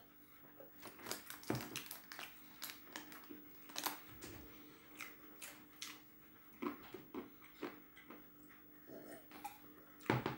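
Peanuts being chewed, a run of faint, irregular crunches.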